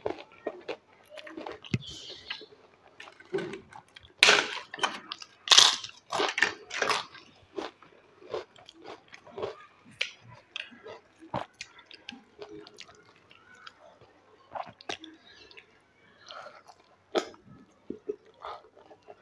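A person chewing and crunching crisp fried food close to the microphone, with bites of puri dipped in kheer. It comes as irregular crunches, loudest and densest a few seconds in, then sparser and softer.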